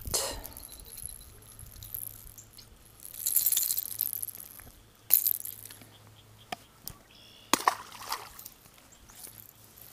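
A small bass being unhooked from a popper lure and let back into the pond: light clinks and clicks of the lure and tackle, a brief splashy rush of noise about three seconds in, then a few more sharp clicks of the rod and reel.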